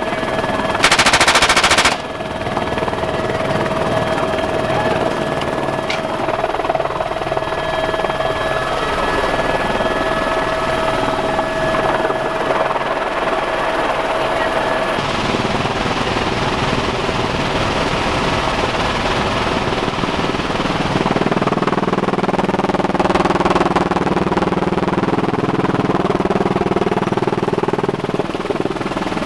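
A burst of machine-gun fire from a helicopter in flight, about a second long and the loudest thing here, followed by the helicopter's steady engine and rotor noise. A lower hum joins in for the last several seconds.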